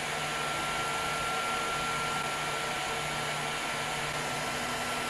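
Cooling fans of a Zonestar Z8PM4 Pro 3D printer running steadily, a constant whirring with a thin, steady whine over it.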